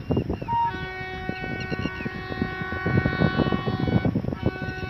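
Indian Railways diesel locomotive's multi-tone horn sounding a long steady blast, breaking off briefly about four seconds in and then sounding again. Irregular low rumbles of wind buffet the microphone underneath.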